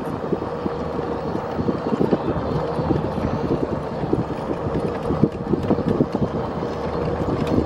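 Wind buffeting the microphone of a slowly moving vehicle, over the vehicle's running noise and a steady hum.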